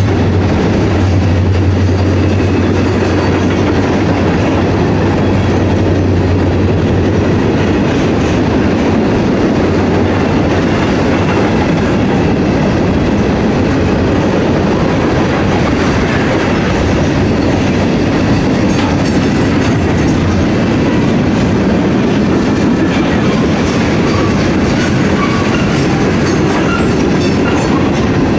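Freight train of covered hopper cars rolling past: a steady rumble of wheels on rail, with a low hum in the first several seconds and wheels clicking over rail joints, the clicks coming more often near the end.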